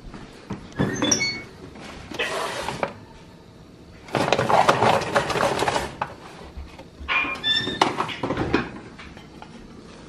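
Kitchen oven door pulled open with a squeaky clunk about a second in, then a couple of seconds of rattling from the oven rack and aluminium foil roasting pan being handled, and the door shut again with another squeaky clunk near the end.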